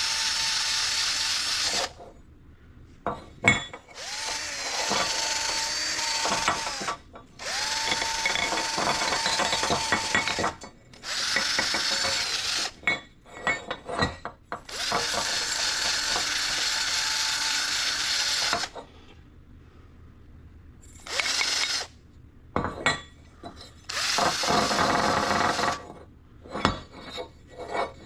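Power drill spinning a small stainless wire brush inside a water pump's shaft bore, scrubbing out leftover silicone. It runs in about seven bursts of one to five seconds, its whine rising at each start, with short pauses and clicks between.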